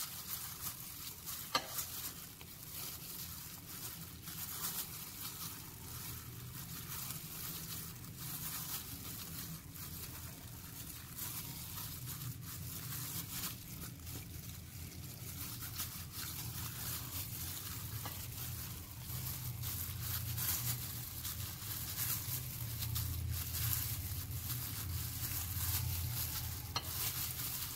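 Chicken pieces being pressed and turned by a plastic-covered hand in a glass bowl of flour and cornflour: soft, irregular rustling and scrunching of the dry flour coating.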